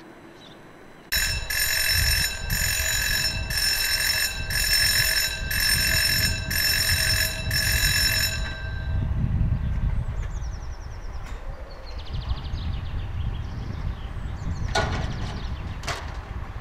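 An electric alarm bell ringing in even pulses about once a second. It starts suddenly about a second in and stops after about seven seconds, over a low rumble. Two sharp knocks follow near the end.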